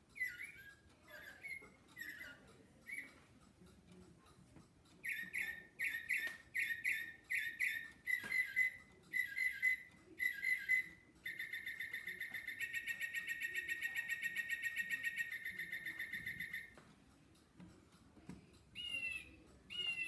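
Recorded bird songs played from a singing bird clock: a few short slurred whistles, then a run of repeated chirping phrases, then a long, fast, even trill from about 11 to 17 seconds in, with another short song starting near the end.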